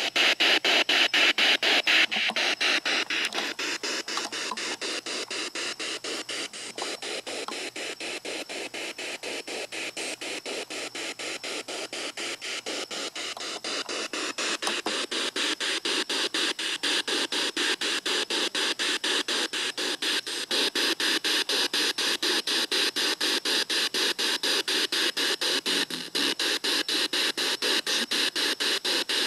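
Radio static hissing, chopped by rapid, evenly spaced clicks several times a second, like a ghost box sweeping through radio stations.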